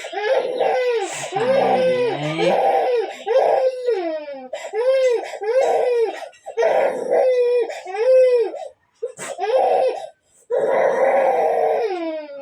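A young child crying in a steady run of short, high-pitched wails, each rising and falling and about half a second long, with two brief breaks in the crying near the end.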